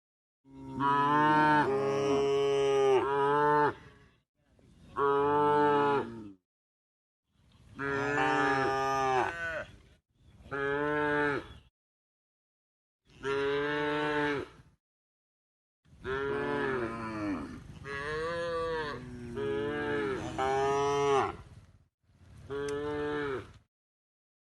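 A cow mooing repeatedly: about seven long, drawn-out calls, each one to three seconds or more, with short silent gaps between them.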